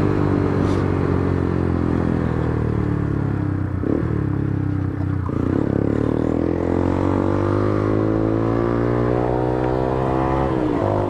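Small single-cylinder four-stroke motorcycle engine on the move. The revs fall for the first few seconds, then climb steadily through the middle, and near the end they dip sharply and start climbing again.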